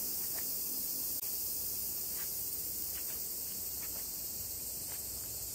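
Dense, steady high-pitched drone of a summer insect chorus, with faint short chirps every second or so.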